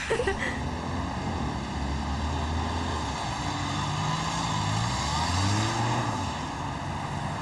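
Small pickup truck's engine running as it drives along a road among passing cars. The engine note rises and falls about four to six seconds in.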